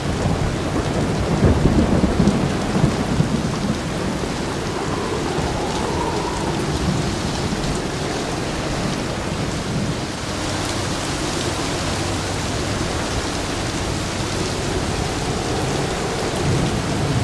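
Steady rain of a thunderstorm, with a low rumble of thunder in the first few seconds.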